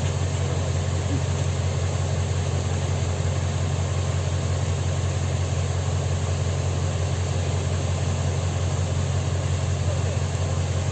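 Heavy engine idling steadily, a low, even drone that does not change.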